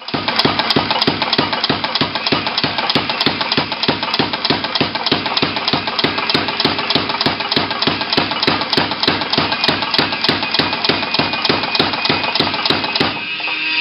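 Big Blu air power hammer striking steel flat bar through an incising tool in a rapid, even run of blows, about five a second. The blows stop about a second before the end, leaving a hiss.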